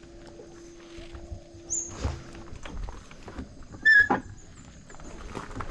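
A short, high-pitched animal call about four seconds in, the loudest sound here, over faint rustling and clicks, with a steady low hum through the first two seconds or so.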